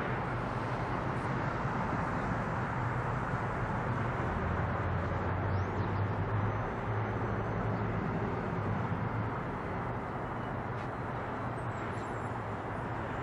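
Boeing 767's twin turbofan engines at climb power as the jet climbs away after takeoff: a steady, deep rumble that eases slightly about two-thirds of the way through.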